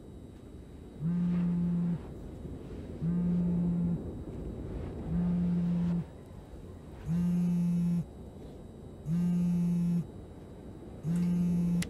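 A mobile phone vibrating with an incoming call: six low buzzes, each about a second long, repeating about every two seconds.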